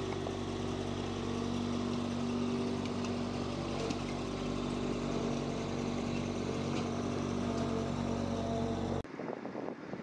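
An engine runs steadily with an even, unchanging hum. About nine seconds in it cuts off abruptly to gusty wind on the microphone.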